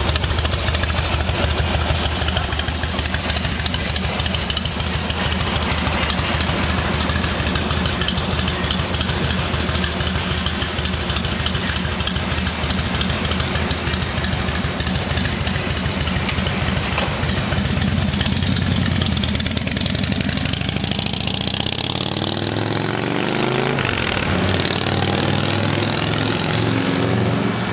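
Harley-Davidson V-twin motorcycle engine idling with an even low beat, then, about twenty seconds in, pulling away and accelerating, its pitch rising and dropping back through the gear changes.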